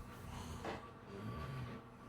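A sleeping person snoring, in the quieter part of the breathing cycle: two soft, low breaths between louder snores.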